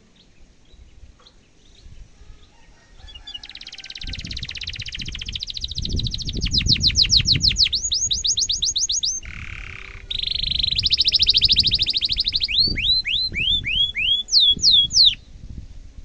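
Domestic canary singing a long song: after a few quiet seconds, fast rolling trills, then rapid repeated sweeps, a short harsh lower note near the middle, another fast trill, and a run of separate falling whistles that stops about a second before the end.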